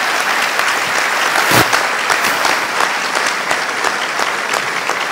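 Audience applauding: many hands clapping steadily, dying away as the speaker resumes just after.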